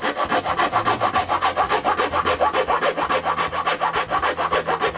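Small round hand file rasping back and forth against the wood in quick, even strokes, several a second, squaring out the corners of a cut hole so a circuit breaker will drop in.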